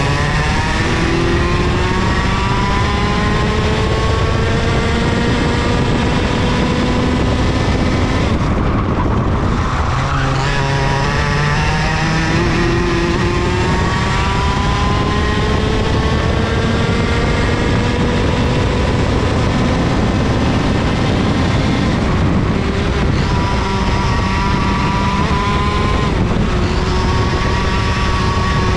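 IAME KA100 100cc two-stroke kart engine at full throttle, its pitch climbing steadily down each straight and dropping sharply three times as the throttle lifts for corners, then climbing again.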